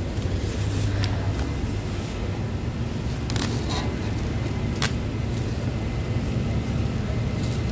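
Steady low hum of supermarket background noise, with a few short crinkles of a thin plastic produce bag being handled as limes are picked into it.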